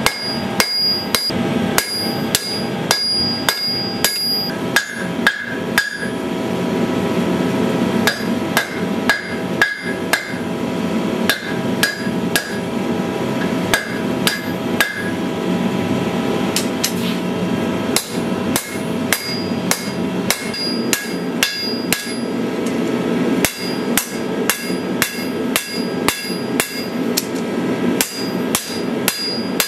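Hand-forging blows of a blacksmith's hammer on steel on an anvil, about two a second and unevenly spaced, each one ringing on briefly. A steady low rush runs underneath.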